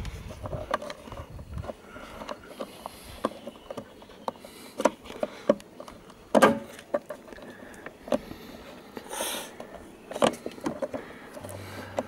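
Scattered plastic clicks and handling noise as fingers work a VW Golf Mk5's door wiring connector and its rubber grommet boot, with the sharpest click about six and a half seconds in and another just after ten seconds.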